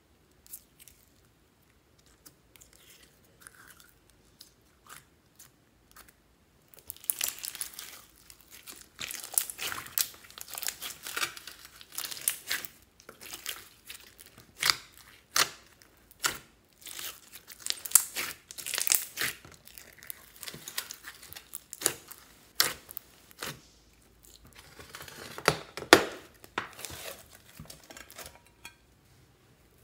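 Hands squishing and kneading a large mass of mixed slime, giving a dense run of wet crackles and sticky clicks. For the first several seconds there are only a few faint clicks before the squishing starts.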